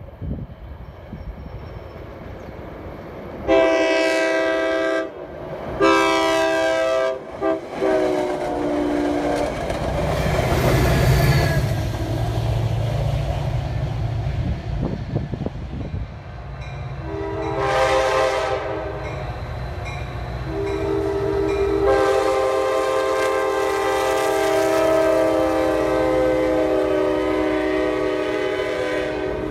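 Commuter train horn sounding a long-long-short-long grade-crossing pattern, followed by a heavy low rumble of the train rolling past. The horn then sounds again: one blast, then a long held blast near the end as bilevel passenger coaches run by.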